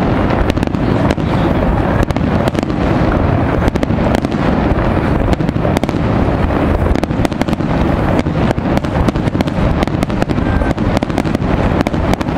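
Aerial fireworks shells bursting in quick succession, a dense, continuous barrage of bangs and crackle with no let-up.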